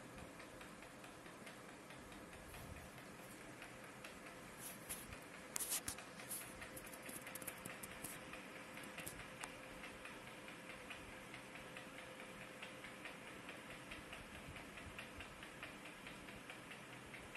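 Faint ticking and small clicks over a steady low hum, with a brief cluster of louder clicks about five to six seconds in.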